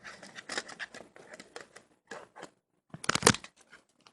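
Small plastic clicks and rattles as a Nintendo 3DS back cover is handled and fitted onto the console, with a burst of louder, sharper clicks about three seconds in.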